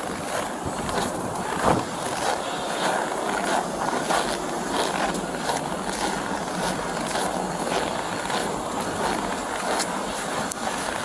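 Wind buffeting a body-worn camera's microphone, with footsteps crunching on snow and crash debris at a walking pace, about one or two steps a second.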